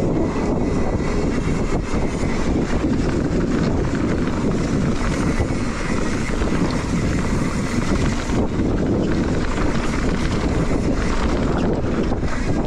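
Steady wind noise on the camera microphone of a mountain bike rolling along a dirt trail, mixed with the tyres running over the dirt.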